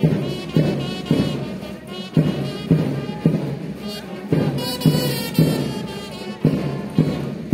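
Brass band march music with a steady drum beat about twice a second, accompanying troops marching past.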